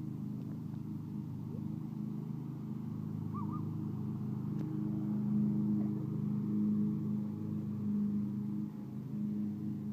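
Riding lawn mower engine running steadily as the mower drives across the grass, a constant low hum that grows a little louder midway.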